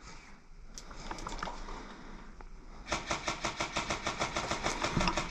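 Airsoft gun firing a rapid string of sharp shots, about seven a second, starting about three seconds in and lasting a little over two seconds, after a few faint scattered clicks.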